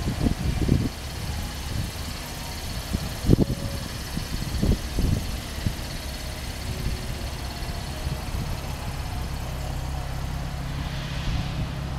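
A motor vehicle engine idling with a steady low hum, which becomes more distinct after about eight seconds. Irregular low thumps of wind buffeting the microphone are heard over it.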